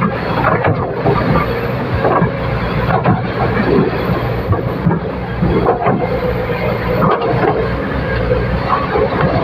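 L&T hydraulic excavator's diesel engine running steadily, with irregular knocks and clanks from the machine working.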